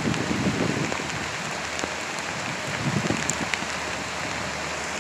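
Steady rushing hiss of a whitewater river running over rocks, with a few light wind bumps on the microphone near the middle.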